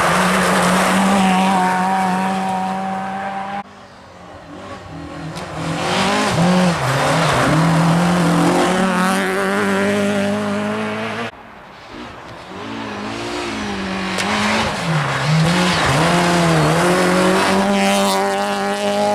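Rally cars driving hard past one after another on a gravel stage, engines at high revs with pitch climbing through the gears and dipping at gear changes. Three separate passes, joined by abrupt cuts about four seconds in and about eleven seconds in.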